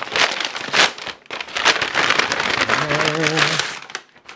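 A USPS Priority Mail envelope being torn open by hand: a long run of tearing and crinkling, with a short hum from the man about three seconds in.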